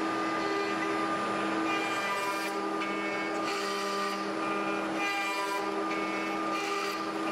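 ShopBot Desktop CNC router's spindle running with a steady whine as the bit makes a Z-level roughing pass into the concave side of a glued-up American holly blank. The cutting noise swells and fades every second or so as the bit moves in and out of the wood.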